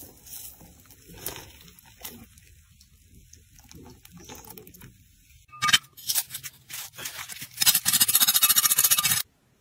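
Molten silver being poured into a sand mould, with faint crackling, followed by a few knocks and then a plastic scoop digging and scraping rapidly through dry casting sand, which stops abruptly near the end.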